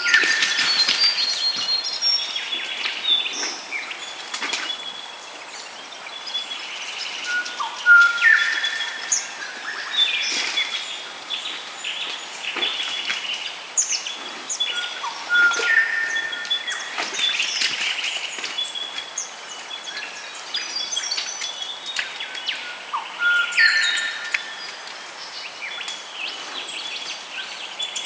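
Morning chorus of birds, several calling and singing over one another: short chirps and whistled phrases that come again every couple of seconds, louder around 8, 10, 16 and 24 seconds in.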